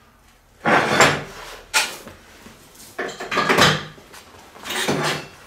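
Steel parts and tools handled on a metal welding bench after a weld: a few separate clanks and scrapes of metal on metal.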